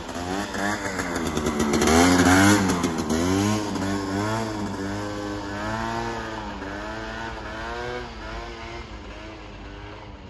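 Piaggio Zip scooter with a swapped-in 125cc Piaggio Runner engine riding away, the engine note rising and falling about once a second. It is loudest about two seconds in and fades as the scooter pulls off into the distance.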